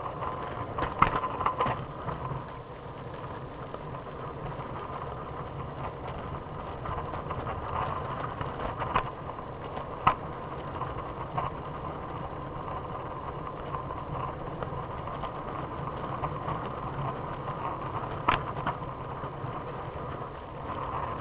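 Steady rumble of a Trikke three-wheeled scooter rolling along, muffled from inside a pocket, with a few sharp clicks.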